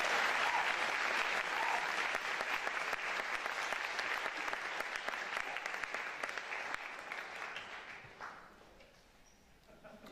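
Audience applauding: dense, steady clapping that dies away about eight seconds in.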